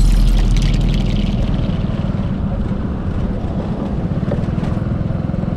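Small motorcycle engine running steadily on the move. A loud low rumble fades away over the first second or so.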